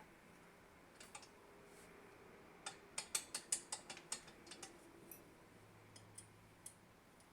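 Faint, light clicks and ticks of drill press parts being handled and fitted during assembly: a quick run of about eight clicks near the middle, with a few scattered ones before and after.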